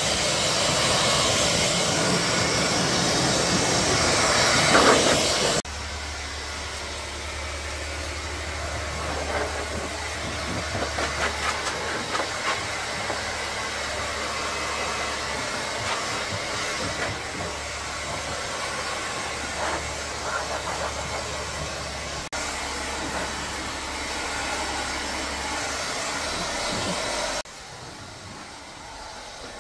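Steady hissing machine noise over a low hum, changing abruptly several times as the scene cuts, with scattered crackles in the middle stretch.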